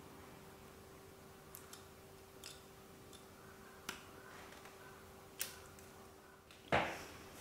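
Steel bonsai branch cutter working at a young maple shoot: a few light clicks of the jaws and a sharper snip about five and a half seconds in. Near the end comes a heavier knock, the loudest sound.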